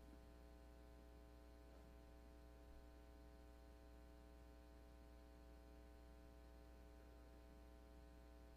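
Near silence: a faint, steady electrical hum with faint held tones above it, unchanging throughout.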